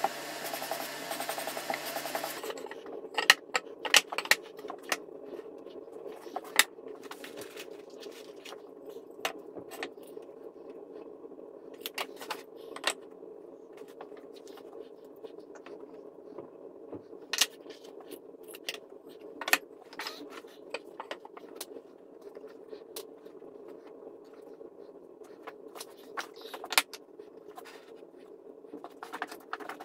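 Wooden boards and pieces being handled and set down on a wooden workbench: scattered sharp knocks and clicks, some loud, over a steady low hum. A hissing noise at the start cuts off about two seconds in.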